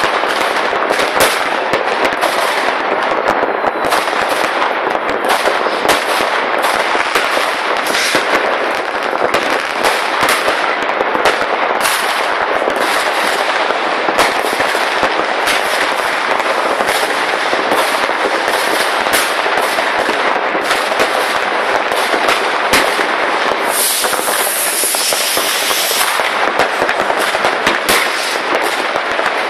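Many fireworks and firecrackers going off at once across a town: a constant dense crackle with sharp bangs several times a second. Near the end a loud high hiss lasts about two seconds.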